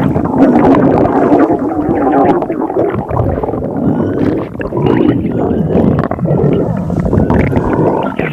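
Loud stomach growling: continuous gurgling rumbles, with higher squealing pitch bends in the second half.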